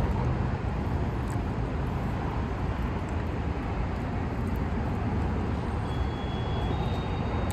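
Steady noise of road traffic.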